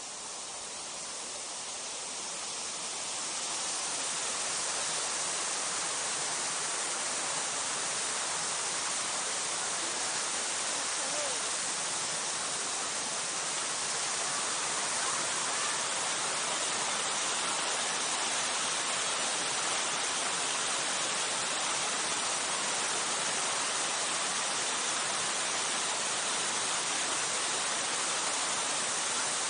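Steady rushing of falling water, a waterfall or cascade, a bright even hiss that grows louder over the first few seconds and then holds.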